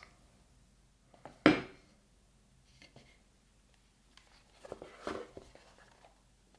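E-ink tablets being handled on a desk. There is one sharp knock about one and a half seconds in as a tablet is laid beside another, then a few quieter clicks and rubbing around five seconds in.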